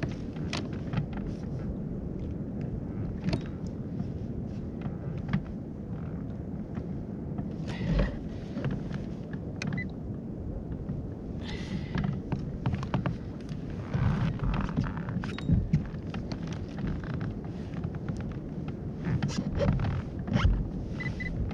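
Low wind rumble on the microphone over the kayak, with scattered knocks and clicks of fishing rod and gear being handled against the plastic hull.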